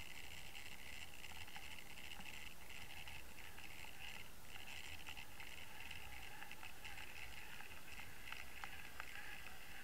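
Steady underwater hiss and rumble of water flowing past an underwater camera housing as it is towed on a fishing line, with scattered faint clicks.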